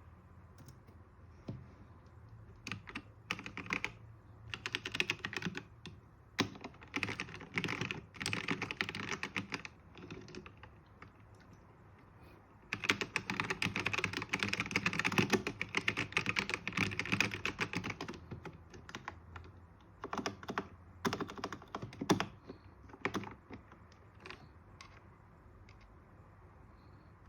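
Typing on a Ziyoulang K68 wireless mechanical keyboard: short runs of keystrokes, then a long, fast stretch of continuous typing in the middle, then a few scattered keystrokes.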